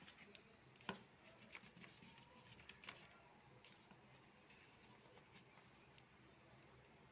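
Near silence with a few faint taps and light scratching, typical of a paintbrush working on paper.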